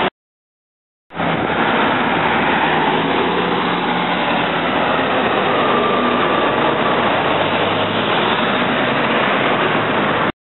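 Street traffic with a diesel bus driving past: a steady wash of engine and tyre noise that starts abruptly after about a second of silence and cuts off just before the end.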